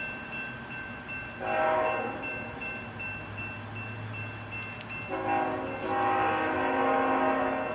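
Freight locomotive's multi-chime air horn sounding for a grade crossing: a short blast about one and a half seconds in, then a long blast from about five seconds in, over a low engine rumble and the regular dinging of crossing-signal bells.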